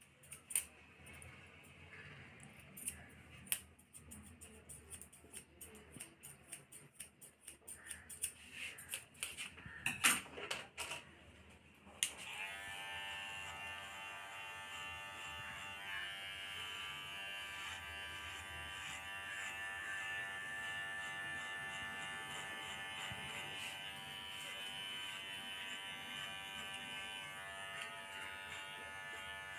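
Barber's scissors snipping hair in quick, irregular clicks for about the first twelve seconds. Then an electric hair clipper switches on suddenly and runs with a steady hum as it cuts along the side of the head.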